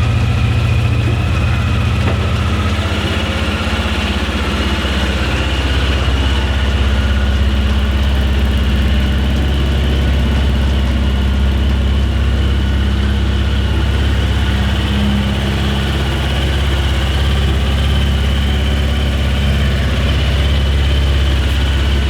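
A 1992 Honda CBR600F motorcycle's inline-four engine idles steadily just after being started. Its idle note drops slightly about three seconds in, then holds steady.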